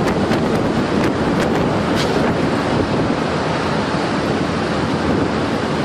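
Loud, steady storm noise: strong wind rushing and buffeting the microphone, with several sharp clicks or knocks in the first two seconds.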